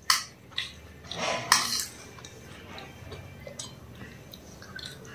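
A metal spoon clinking and scraping against a small metal plate as food is scooped up: a few sharp clinks and a scrape in the first two seconds, then only faint light ticks.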